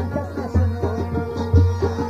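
Instrumental passage of Afghan folk music: quick plucked dambura notes over a deep drum stroke about once a second.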